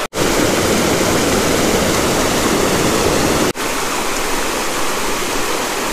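Steady rushing of a shallow mountain stream flowing close by, cutting out for an instant twice, shortly after the start and about halfway through.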